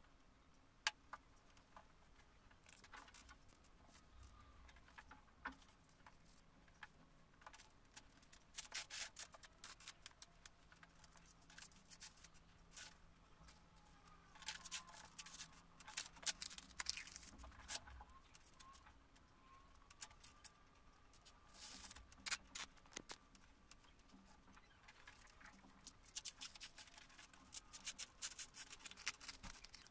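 Sanitary pads being pulled apart by hand: quiet crinkling, scratching and tearing of the pad layers and filling, coming in clusters with sharp clicks and light taps on the table.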